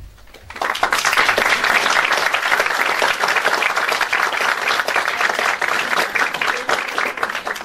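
Audience applauding, the clapping starting about half a second in and dying away near the end.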